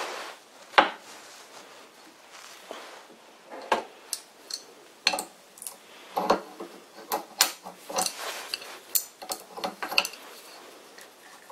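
A wrench clinking on the hex of a lathe headstock's oil cup as the cup is unscrewed from its bearing cap: a scattering of sharp metallic clicks and taps, the loudest about a second in and more of them in the second half.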